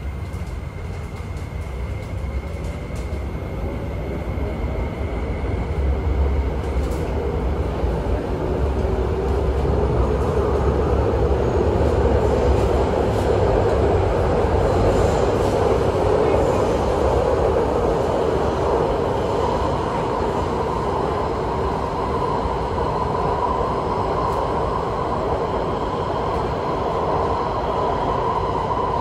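MTR train pulling away from a station, heard from inside the car. The traction motors whine, rising in pitch as the train accelerates, over the rumble of the wheels on the rails. Then it runs at speed, with a steady higher whine in the second half.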